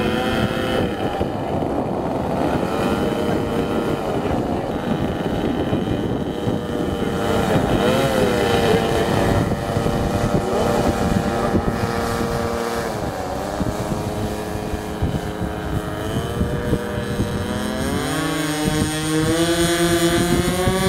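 Twin engines of a radio-controlled Top Flite Cessna 310 model plane in flight. Their pitch swoops down as the plane passes by several times, then climbs steadily near the end, with some wind noise on the microphone.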